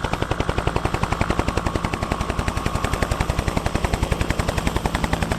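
Electronic sound effect from a battery-powered toy helicopter: a rapid, even rattling pulse of about a dozen beats a second over a low steady hum, like a rotor chop or a machine-gun burst.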